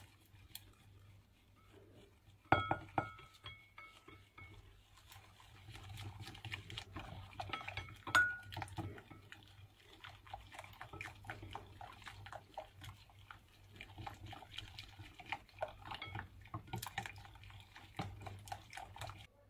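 Silicone whisk beating egg yolks in a glass bowl as warm cream is poured in: rapid light ticking and scraping against the glass. A ringing clink about two and a half seconds in, and another about eight seconds in.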